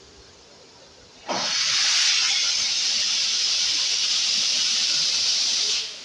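Steam locomotive venting steam from its cylinder drain cocks at the front: a loud, steady hiss that starts suddenly about a second in and cuts off shortly before the end.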